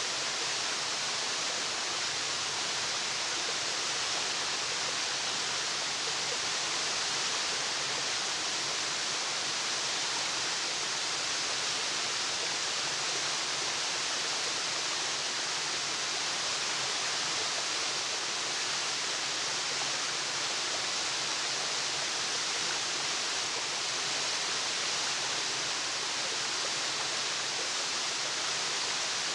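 Waterfall: water falling and splashing in a steady, even rush with a bright hiss and no breaks.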